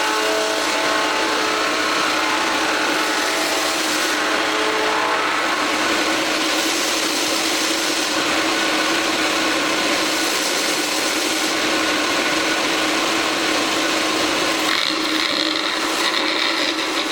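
BCS15220 belt cylindrical sander with an inflatable drum and a 1.5 kW motor running steadily: a constant motor hum under the hiss of the abrasive belt, which sounds like it is working against wood. The sound changes a little about fifteen seconds in.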